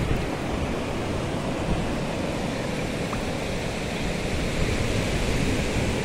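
Small waves breaking and washing up over the sand in the shallows, giving a steady rush of surf.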